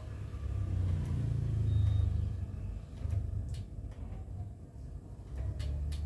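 A low rumble that swells over the first two seconds and fades, then rises again near the end, with a few light clicks.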